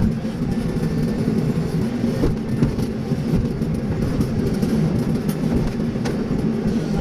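Excavator's diesel engine running steadily under work, with a few faint knocks over the rumble.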